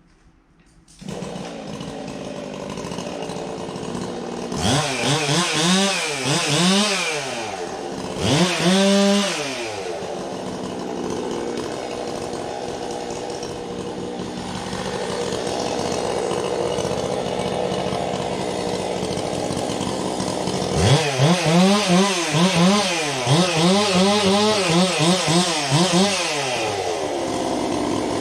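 Chainsaw running, its engine revved up and down in bursts: a couple of revs a few seconds in, then a quick run of repeated revs near the end.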